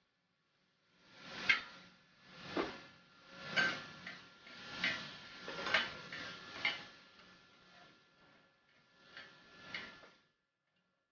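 Metal spatula and fork scraping and clacking on a steel teppanyaki griddle as beef cubes are turned, in short strokes about a second apart with a sizzle under them. There is a pause, then two more strokes near the end.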